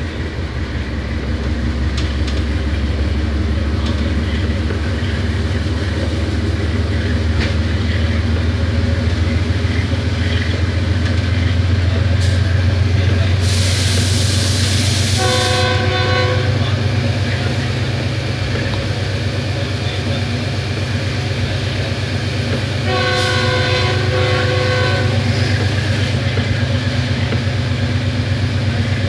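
GE 7FDL-12 diesel prime mover of a GEU-20 locomotive chugging steadily under power as it accelerates the train, heard from on board. The locomotive's horn sounds twice, a short blast about halfway through and a longer one later, with a burst of hiss just before the first.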